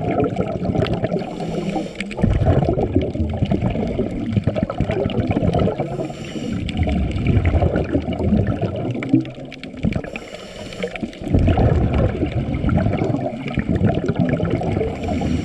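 Water gurgling and churning in surges, deep and bubbly, easing briefly a couple of times before swelling again.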